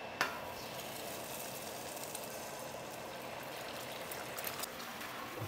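Eggs frying in hot bacon fat in a cast iron skillet, a steady sizzle, with one sharp crack of an eggshell just after the start.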